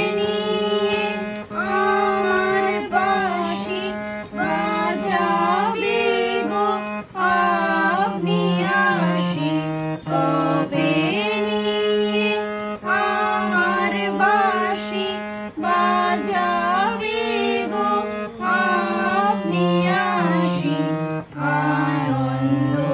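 A boy sings a Bengali song while playing a harmonium: steady held reed notes sound beneath a voice that glides and ornaments its way through short phrases.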